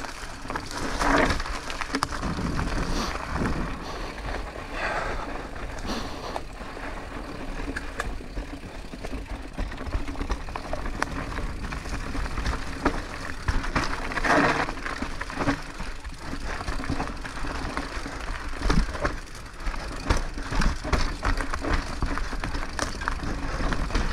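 Mountain bike rolling along a dirt forest trail, its tyres crunching and crackling over dry leaves and twigs, with wind rumbling on the camera microphone.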